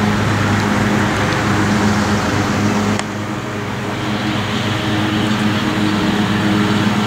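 A steady motor hum, a low drone over a wash of noise, that dips briefly about three seconds in.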